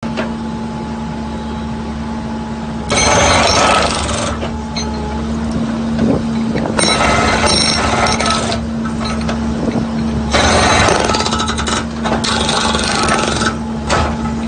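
Skid steer's hydraulic breaker hammering in four bursts of one to two seconds each, over the steady hum of the machine's engine.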